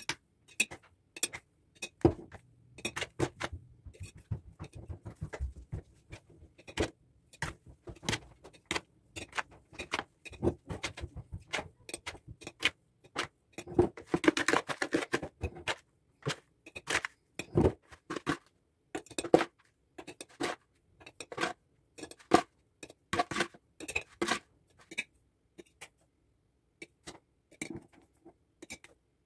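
A metal spoon scooping ground nut filling and knocking against a glass jar and plastic bowls, making an irregular run of clinks and taps. About halfway through there is a longer stretch of scraping.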